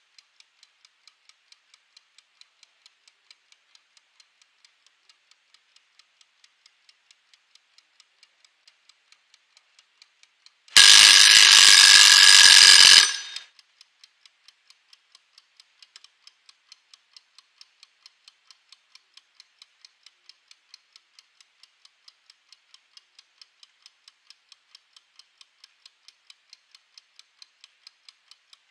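Mechanical wind-up kitchen timer ticking, about four ticks a second. About ten seconds in it runs down to zero and its bell rings loudly for about two and a half seconds, then the ticking goes on.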